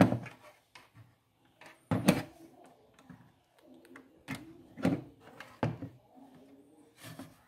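Scattered clicks and light knocks from multimeter test probes and hands bumping against a TV's circuit board and plastic back casing, a handful of separate knocks spread over several seconds.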